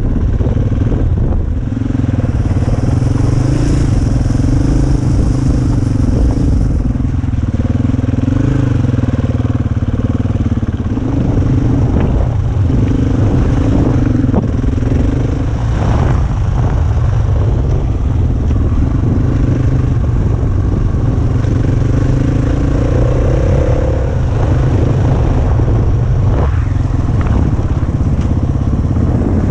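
KTM motorcycle engine running as the bike is ridden along a trail, its pitch rising and falling with the throttle. A heavy low wind rumble sits on the microphone, with a few sharp knocks now and then.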